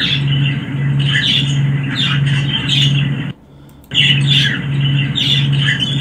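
Recorded budgerigar chatter played back: quick warbling chirps and squawks, which the owner hears as the green budgie talking. The clip stops just after three seconds in and plays again about half a second later, with a low hum pulsing just under twice a second beneath the chatter.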